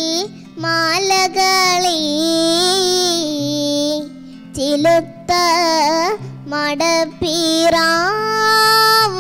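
A young girl singing a melody into a microphone, in phrases with long held notes and short breaths between, over a quiet instrumental accompaniment.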